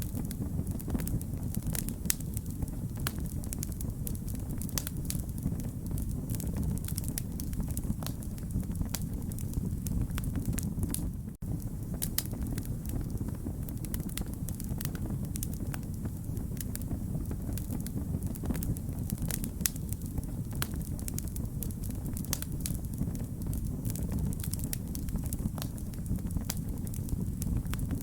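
Wood fire burning with a steady low rumble and frequent irregular crackles and pops. The sound cuts out for an instant about eleven seconds in.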